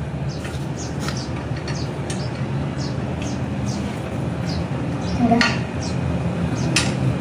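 Hand work on a scooter frame and engine during assembly: a single light metallic clink about five seconds in, over a steady low hum and faint background voices.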